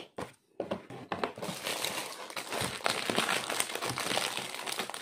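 Clear plastic packaging of a diamond-painting kit crinkling and rustling as it is handled, with many small crackles. The sound begins about half a second in.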